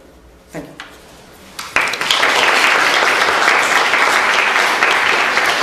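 Audience applauding, breaking out suddenly a little under two seconds in and then holding steady.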